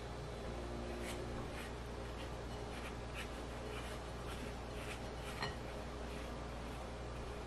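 Spatula scraping and folding stiff, floury cookie dough in a glass mixing bowl: a run of short, soft scrapes, with a sharper tick against the bowl about five seconds in, over a low steady hum.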